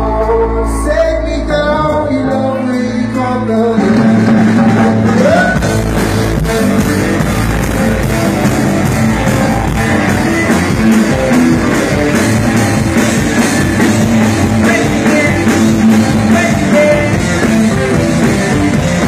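Live rock band playing loud: electric guitar and drum kit, with singing. A held, ringing chord opens, and the band gets louder and busier about four seconds in.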